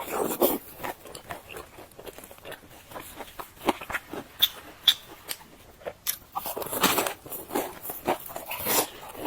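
Fried dough sticks being bitten and chewed: irregular crisp crunches and small wet clicks, coming in louder bunches through the middle and near the end.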